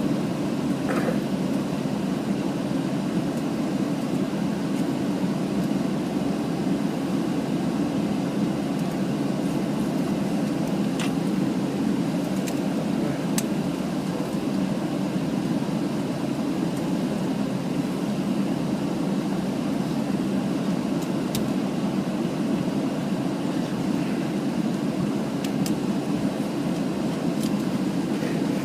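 Steady cabin rumble of a Boeing 737 rolling on the ground after landing, heard from a window seat, with the engines at low power. A few faint clicks sound near the middle and near the end.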